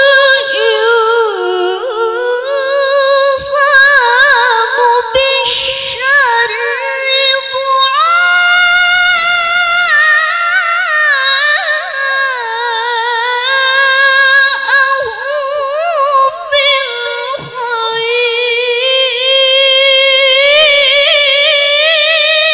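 A woman reciting the Qur'an in the melodic tilawah style into a microphone, holding long, high, ornamented notes with a few short breaks.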